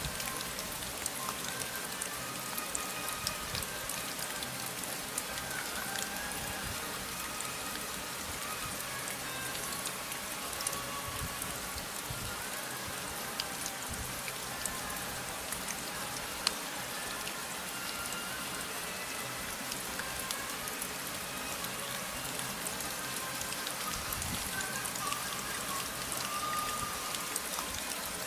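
Steady rain, with a constant hiss and many small drop ticks, over faint music.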